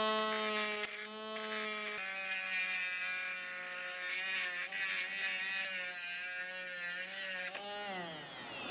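Homemade mini drill, a small DC motor with a chuck, running at speed with a steady whine. Its pitch dips slightly about two seconds in, and it spins down near the end.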